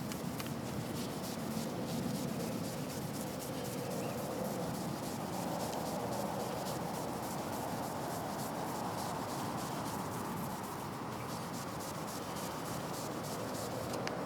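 Continuous rubbing or sanding by hand on a car's painted surface while repairing scratches in the paint.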